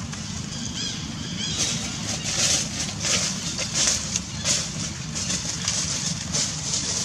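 Dry fallen leaves rustling and crackling in irregular bursts as the monkeys shift on the leaf litter, starting about a second and a half in, after a few faint high chirps. A steady low rumble sits underneath.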